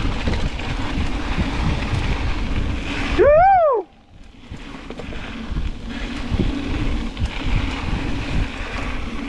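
Wind buffeting the microphone and the rumble of a mountain bike rolling down a dirt trail. About three seconds in comes a short, loud, high-pitched call that rises and falls in pitch. Right after it the noise drops away for about a second before the wind and rumble return.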